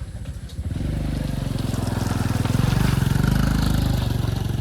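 Motorcycle engine running, getting louder about a second in and loudest in the middle before easing off a little.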